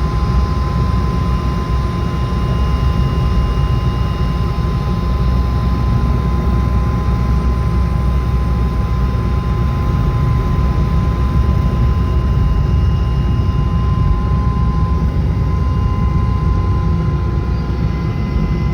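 Helicopter running steadily while landing on an offshore drilling rig: a loud, even low rumble with a steady high whine over it.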